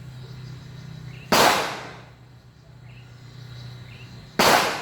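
Two gunshots about three seconds apart, each sharp and loud and trailing off over about half a second.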